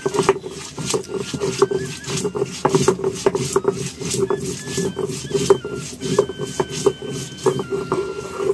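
Stone grinding on a sil-batta: a hand-held grinding stone rubbed and rocked over a stone slab to crush a wet spice paste, giving a run of irregular scraping, grating strokes, several a second.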